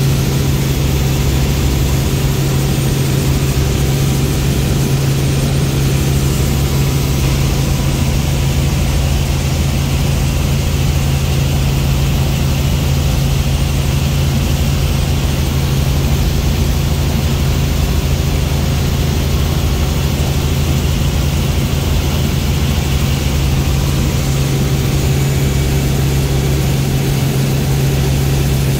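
Helicopter in flight, heard from on board: the rotor and engine make a loud, steady low hum over a rumble.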